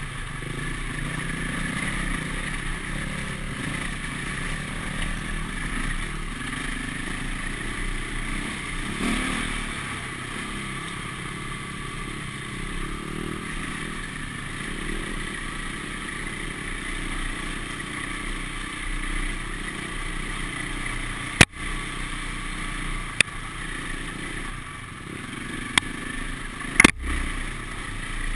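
Off-road motorcycle engine running steadily as the bike rides a rough, muddy dirt track, heard from the rider's helmet camera. Four sharp knocks come in the last several seconds.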